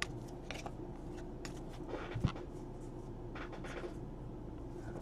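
Faint rustles and soft flicks of paper baseball cards being thumbed through and squared into a stack, over a steady low hum, with one sharper tap a little over two seconds in.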